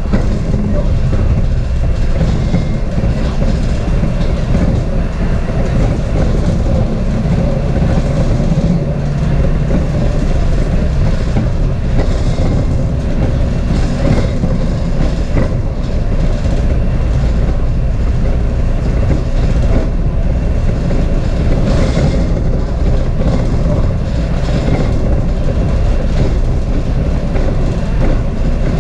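Steady engine and road noise of a transit bus, heard from inside the moving cabin, with frequent small rattles and clicks.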